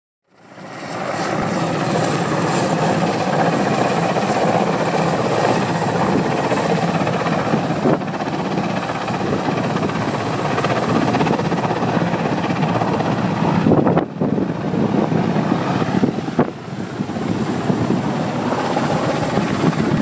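Large helicopter flying low close by, its rotor and turbine engines running loud and steady.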